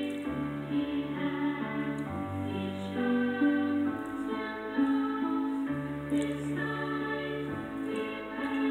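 Music with held chords and singing voices over a slowly changing bass line.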